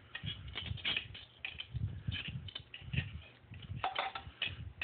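Irregular light metallic clicks and knocks of a wrench tightening the arbor nut that holds a sanding disc on a bench grinder, with handling of the disc and nut.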